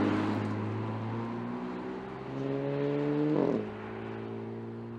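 Porsche Panamera 4 E-Hybrid Sport Turismo's twin-turbo V6 accelerating. The engine note first fades as the car pulls away, then climbs in pitch and drops sharply about three and a half seconds in at an upshift, settling into a steady drone.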